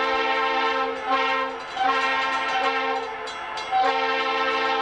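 A diesel freight locomotive's air horn sounds a steady multi-note chord. The chord breaks off briefly about a second in, sounds weaker through the middle, and comes back at full strength near the end.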